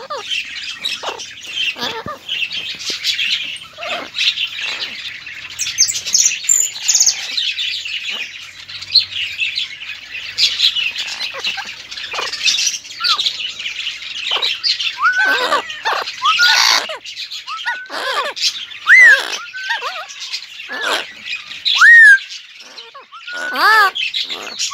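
Blue-fronted amazon parrots squawking and calling over a constant high twittering chatter of many birds. From about halfway in come loud pitched squawks that bend up and down, two of them very loud.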